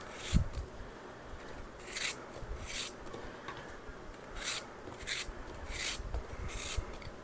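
A small kitchen knife cutting through a peeled raw apple held in the hand, a short crisp scrape with each cut, about seven cuts.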